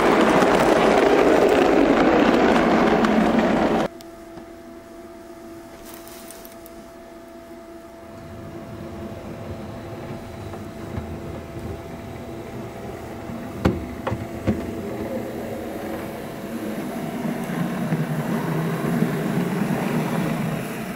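An O gauge model goods train rumbling along the track close by, cut off abruptly about four seconds in. Then a small O gauge model tank locomotive running toward the listener, its wheels and motor growing steadily louder, with two sharp clicks partway through as it crosses rail joints or pointwork.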